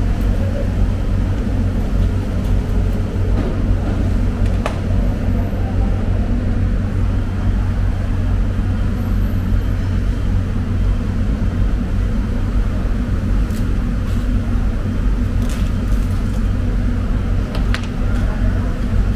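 Steady loud low rumble of running machinery, unchanging throughout, with a few faint clicks.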